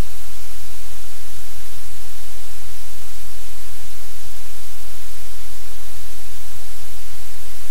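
Loud, steady hiss and static with a low electrical hum underneath, unchanging throughout.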